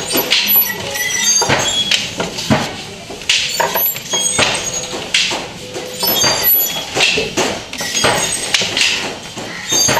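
Wooden handloom being worked: the batten knocks the weft home and the shuttle is thrown, making a rhythmic wooden clacking of about two knocks a second.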